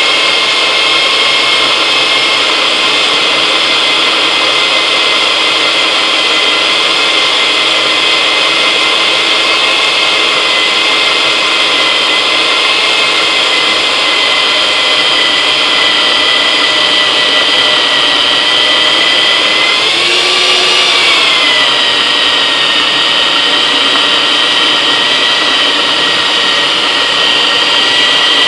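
Electric magnetic-base drill press running steadily under load, its bit boring into steel round stock, a constant motor whine. About 20 seconds in the pitch briefly rises, then settles slightly lower.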